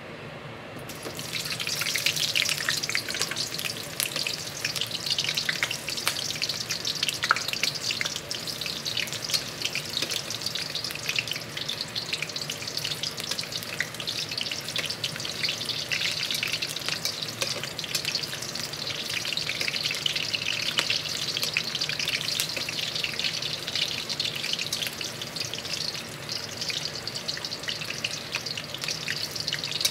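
Sliced onion rounds frying in hot oil in a wok: the sizzle starts about a second in as the slices go into the pan, then carries on steadily with frequent small pops.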